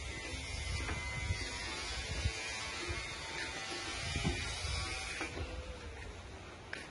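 A steady buzz like a small electric motor running, whose hiss drops away about five seconds in, with a few light knocks of sheet metal being handled.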